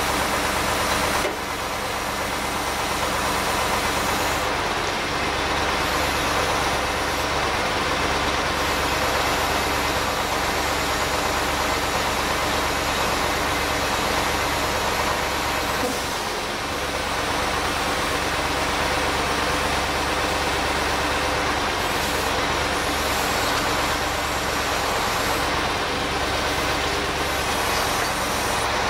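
Kamaz 43118 truck's V8 diesel engine running steadily, driving the hydraulic pump of its IM-77 knuckle-boom crane while the boom lifts and swings a test weight.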